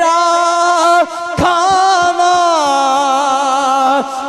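A man singing a long drawn-out, wavering note of a devotional naat refrain over a microphone. There is a short break about a second in, and the melody falls lower in the second half.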